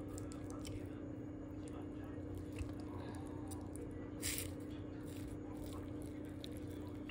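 Wooden spoon mixing a rice bowl with fried egg, avocado and tuna in a ceramic bowl: soft squishing with faint ticks of the spoon against the bowl, and a brief louder scrape about four seconds in. A steady low hum runs underneath.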